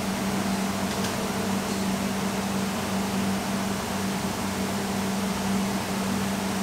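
Steady hum and hiss of commercial kitchen equipment running, with a constant low tone throughout.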